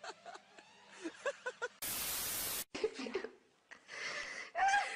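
Short rhythmic bursts of laughter, then a loud burst of hiss lasting just under a second, then a voice crying out with a rising pitch near the end.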